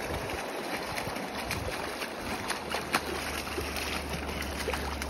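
Hooked coho salmon thrashing and splashing in shallow water at the bank, over a steady wash of water. A few sharp splashes stand out, the loudest about three seconds in.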